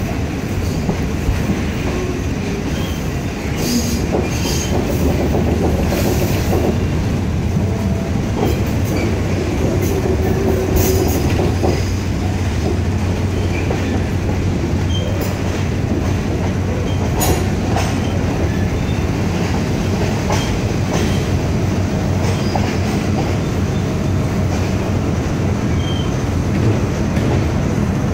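A State Railway of Thailand ordinary passenger train, hauled by an ALS diesel locomotive, rolling slowly into a terminus, heard from inside the coach. There is a steady low running rumble, with clicks and clatter of the wheels over rail joints and points and a few short wheel squeals.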